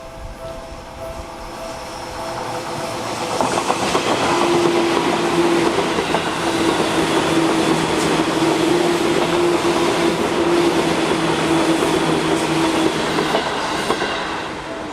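A Japanese level-crossing alarm rings in a steady pulsing ding-ding, then an electric train of the Seibu Shinjuku Line passes through the crossing from about three seconds in, its wheels clacking over the rail joints with a steady motor hum, drowning out the alarm. The train noise fades near the end and the crossing alarm can be heard again.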